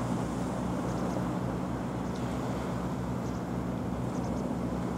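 Fishing boat engine running with a steady low drone while the boat tows its seine net, over wind and choppy water.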